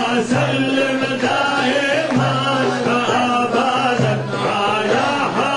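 Group of men chanting Sufi dhikr together in a hadrah, loud and rhythmic, the same short phrase repeated about once a second.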